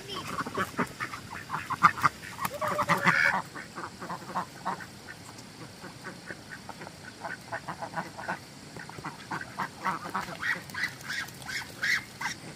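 A flock of domestic ducks quacking: many short, overlapping calls, loudest in the first few seconds, thinning out in the middle and picking up again near the end.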